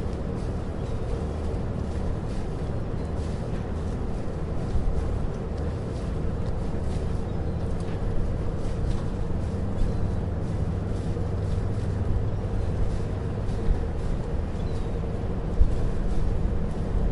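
Steady low engine drone with a constant hum, over which faint knocks and clicks come and go.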